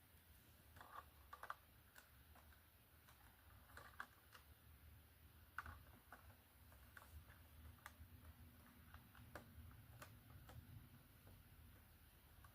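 Faint, irregular clicks and taps of LEGO plastic pieces being handled, a minifigure and its throne, over quiet room tone.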